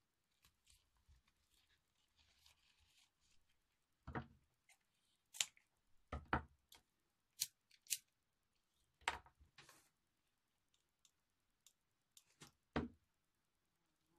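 Scissors snipping satin ribbon in a series of short, sharp cuts, some in quick pairs, with faint ribbon rustling in between.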